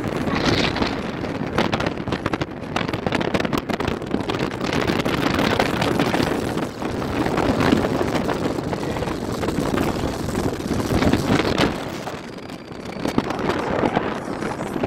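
Storm wind buffeting a phone's microphone: a loud, uneven rush with frequent crackling gusts.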